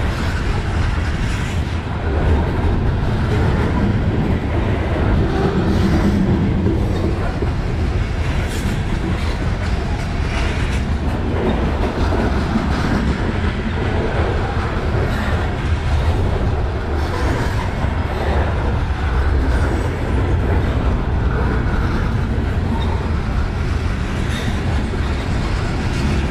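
Covered grain hopper cars of a Kansas City Southern freight train rolling slowly past at close range as it creeps up a grade: a steady heavy rumble of steel wheels on rail, with intermittent clicks as the wheels pass over the rail joints.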